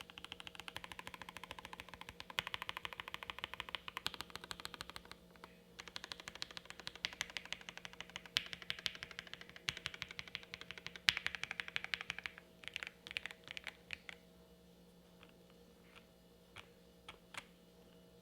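Fast typing on a Jelly Epoch gasket-mount mechanical keyboard with a polycarbonate plate and no case foam, fitted with Lavender linear switches lubed with Krytox 205g0 and GMK keycaps. The rapid keystrokes break briefly about five seconds in, thin out after about twelve seconds, and end as a few separate key presses.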